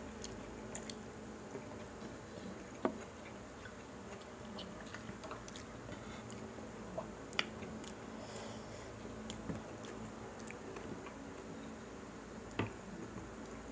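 Quiet eating by hand: soft chewing and small squishy sounds of crispy pork and rice being picked at with the fingers, with about three sharp little clicks spread through. A faint steady hum lies underneath.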